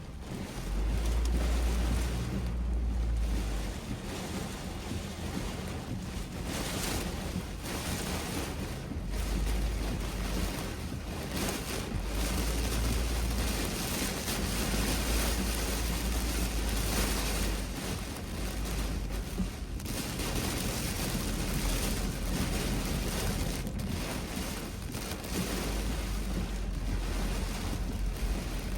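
Gusty wind blowing across the microphone: a steady rushing with heavy low buffeting that swells and drops off every few seconds.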